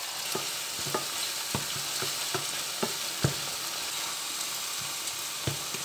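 Chicken, vegetables and egg sizzling steadily in a hot frying pan while a spatula stirs and scrapes, with irregular clicks and knocks of the spatula against the pan. The sharpest knock comes about three seconds in.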